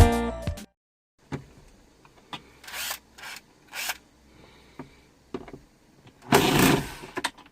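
Music ending, then hand-handling sounds from work on a car's cabin air filter: scattered light clicks and short scraping rustles of plastic parts, with a longer, louder rustle near the end.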